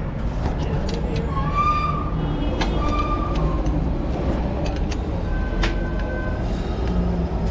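Steady rumble of motor vehicles, with a few sharp metallic clicks from a spanner working the engine's oil drain nut.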